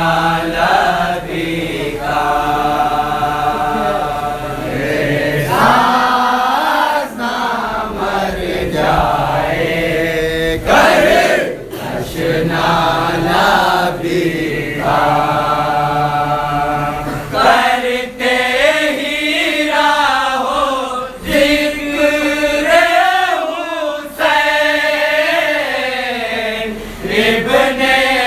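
Men's voices chanting an Urdu noha (mourning elegy) together, with no instruments. A lead voice is joined by the group in long, drawn-out held notes.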